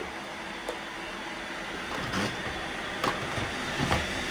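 Robot vacuums running, a steady motor-and-brush hum, with a few short knocks as they bump into things, the last of them nearly 4 seconds in.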